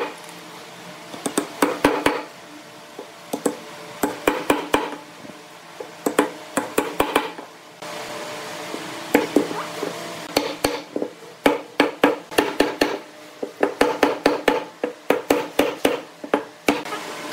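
Hammer tapping on pine wood in quick runs of sharp knocks, driving glued dowels home and seating two curved pine leg pieces together on them.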